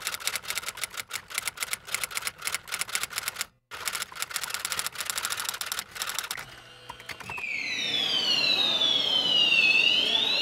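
Typewriter keystroke sound effect, a rapid run of clacks several a second, briefly pausing, as a title is typed out. About seven seconds in it gives way to a louder siren-like effect whose tones glide down and then swoop back up.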